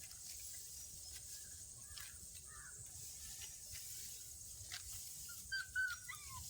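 Faint outdoor field ambience: scattered bird calls over a steady high hiss, with a louder falling call near the end.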